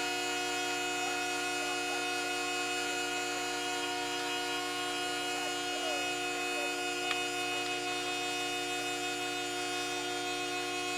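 A steady machine hum made of several held tones that does not change, with one small click about seven seconds in.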